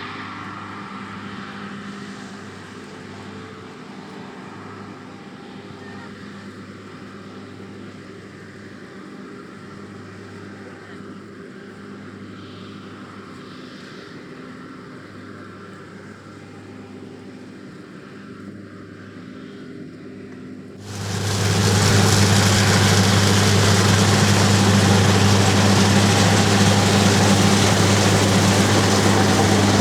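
John Deere S680i combine harvester running with a steady engine hum. About twenty seconds in it suddenly becomes much louder and noisier, and keeps going at that level.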